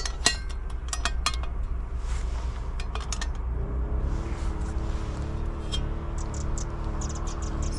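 Metal clinks and taps as a Trangia's frying pan is set on the aluminium stove and handled, several sharp knocks in the first three seconds. About halfway through, a steady low hum with a slight waver sets in.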